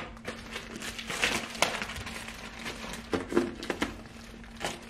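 Thin plastic shrink wrap being peeled and torn off a laptop box: irregular crinkling with small clicks.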